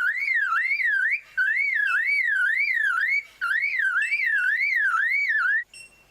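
Superb lyrebird mimicking a car alarm: a loud whistled tone sweeping up and down about two and a half times a second, in three runs with short breaks, stopping near the end.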